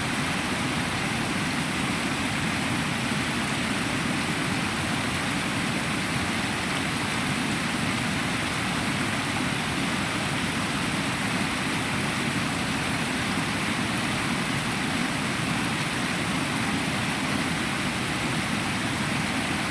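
Flowing water of a mountain stream or spring, a steady even rush with no change in level.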